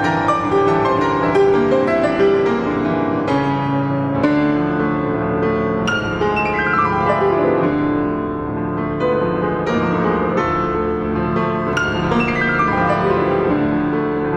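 Solo piano playing a classical piece, with chords and quick runs of notes.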